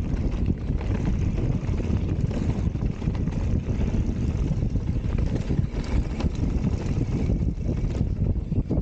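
Steady low wind rumble buffeting a rider's camera microphone during a mountain bike ride along a dirt trail.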